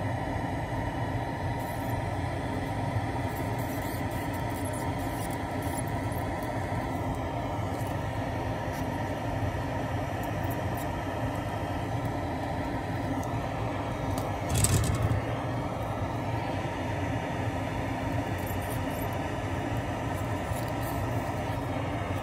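Steady mechanical hum and rumble with several faint steady tones, as from a fan or motor running without change. A brief knock about two-thirds of the way through.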